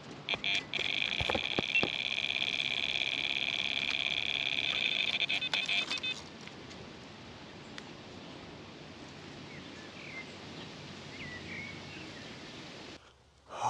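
Electronic carp bite alarm sounding as a fish takes line: a few rapid beeps, then an almost unbroken high tone for about five seconds before it stops. A few faint chirps follow over the outdoor background.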